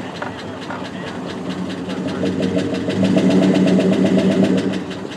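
Z71 pickup truck's engine running as it reverses a boat trailer down the ramp, with a rapid ticking over the steady hum; it grows louder for a couple of seconds past the middle, then eases back.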